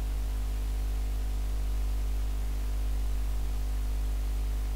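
Steady electrical hum with a low drone and stacked overtones under an even hiss, unchanging throughout.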